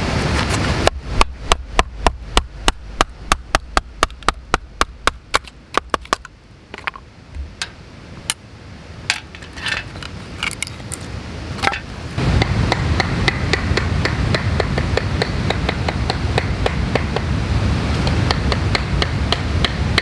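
Knife being batoned through a piece of firewood: quick, even wooden knocks about four a second for some five seconds, then sparser sharp cracks as the wood splits apart. After about twelve seconds a steady rushing noise takes over.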